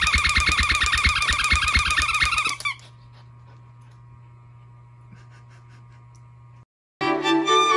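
A loud, fast-pulsing tone, several pulses a second with a thud on each, that cuts off suddenly about two and a half seconds in. A faint steady hum follows. After a brief dropout near the end, a violin melody begins.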